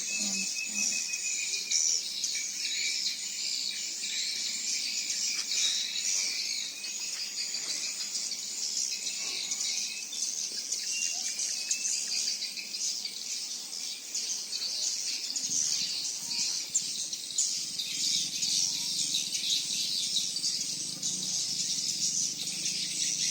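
Dense, continuous chirping of many small birds, with a low hum joining about two-thirds of the way in.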